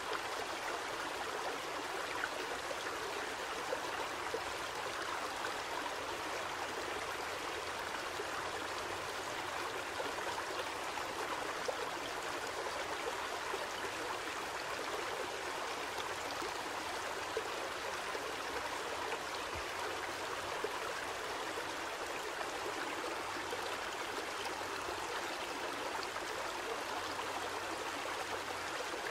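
Steady rushing of a shallow river flowing over rocks, an even hiss with no breaks.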